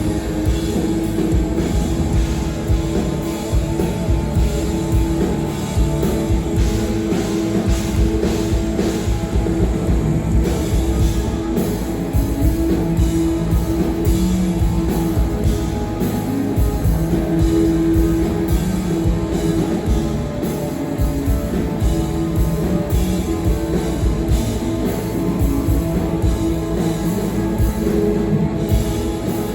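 A rock band playing live: electric guitars and a drum kit, loud and continuous.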